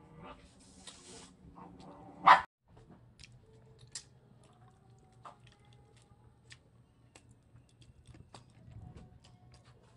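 An animal's pitched whimpering cries ending in one loud yelp about two seconds in, then faint smacking and clicking of chewing and sucking on chicken feet eaten by hand.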